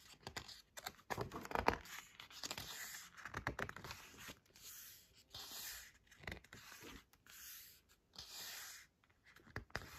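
Glossy photobook pages turned and smoothed flat by hand: soft paper rustles and swishes, with several separate swishes about a second apart in the second half.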